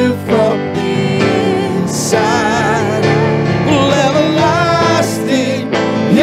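Live worship band playing a slow song, with a voice holding notes with vibrato over sustained chords.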